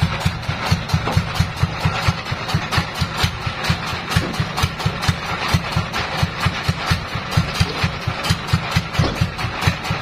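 The band sawmill's engine idling with a steady low thudding, about four to five beats a second, while the saw is not cutting.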